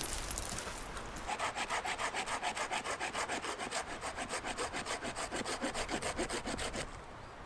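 Hand saw cutting through wood in quick, even back-and-forth strokes, starting about a second in and stopping shortly before the end.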